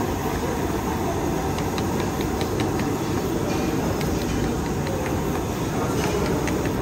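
Steady low roar of a gas stove burner under a pot. Light clicks of long wooden chopsticks against the aluminium pot sound as noodles are stirred and lifted from the broth.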